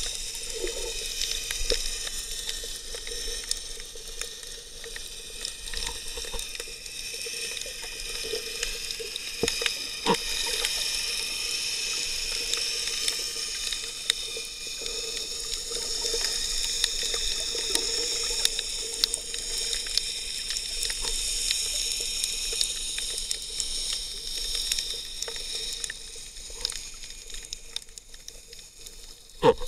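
Underwater sound heard through an action camera's waterproof housing: a steady hiss with scattered crackles and clicks over a faint steady hum, and one sharp knock near the end.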